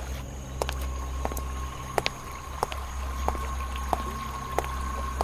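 Cartoon footsteps sound effect: evenly spaced soft steps, about three every two seconds, over a steady low hum and a thin steady high tone.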